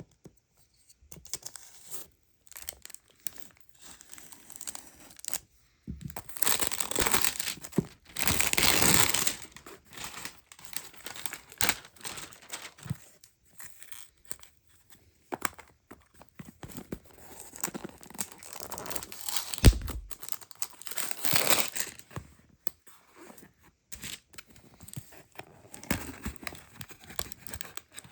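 Product packaging being torn open and crinkled by hand, in irregular bouts of rustling and ripping with louder stretches. A single dull thump about two-thirds of the way through.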